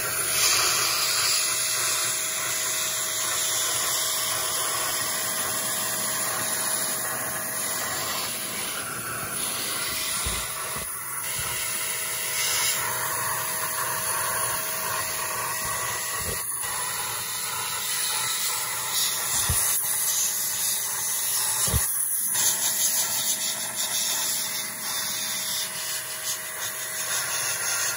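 Handheld air vacuum running steadily, sucking dried tire-foam residue and dust out of crevices in the engine bay, with a few short knocks in the second half.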